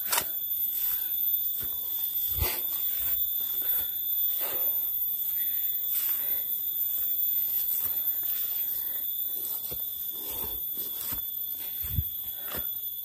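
A hiker pants heavily while climbing a steep grassy forest trail, his footsteps thudding and brushing through the undergrowth at irregular intervals. A steady high-pitched insect drone sounds underneath.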